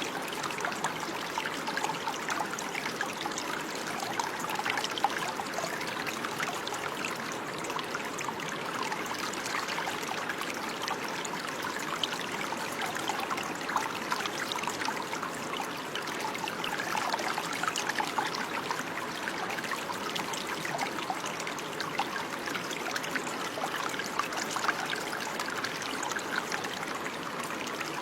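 Water running and trickling steadily over stones, with many small splashes and bubbling.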